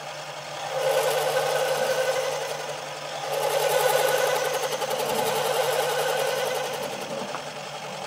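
Small metal lathe running, turning a cast aluminium pillow block down to size. A steady motor hum runs under the louder rhythmic noise of the cut, which comes in about a second in, eases briefly around three seconds, then picks up again and fades near the end as the spindle winds down.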